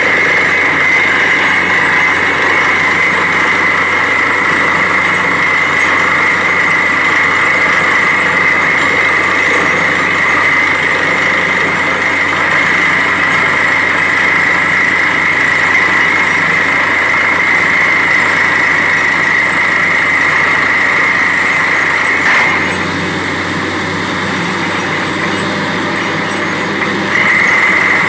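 Borewell drilling rig running steadily, loud machine noise with a high-pitched whine. The whine and the level drop for a few seconds about 22 seconds in, then come back.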